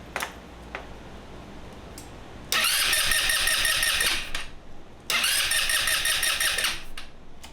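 GY6 150cc scooter engine cranking on its electric starter in two bursts of about two seconds each, a few light clicks before. Each time it stops without the engine catching: the scooter is not starting.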